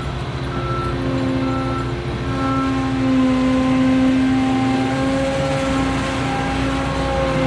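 Farm machinery running steadily: a constant engine-like hum with several held tones that shift slightly in pitch.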